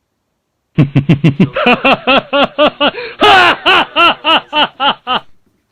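A person laughing in a long run of rapid "ha"s, about four or five a second, with a breathy gasp about midway.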